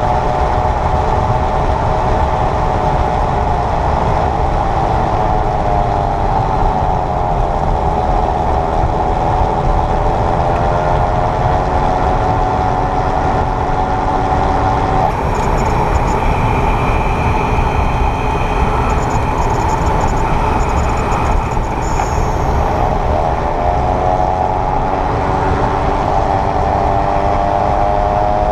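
2022 Kia EV6's front drivetrain whirring in Eco mode around 28–30 mph: a whine of several tones rising and falling with speed over steady road noise. It is heard while the front motor is not engaged, and the uploader finds it goes away once the motor engages. The whine fades about halfway through and comes back near the end.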